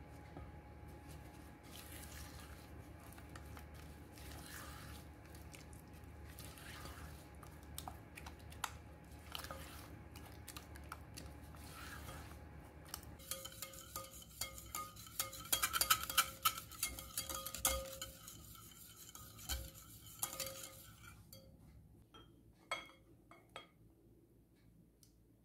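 Silicone spatula stirring and scraping a thick cream cheese mixture in a glass mixing bowl. A little past halfway the stirring turns into a dense run of quick clinks against the glass for several seconds, then thins out to a few scattered taps.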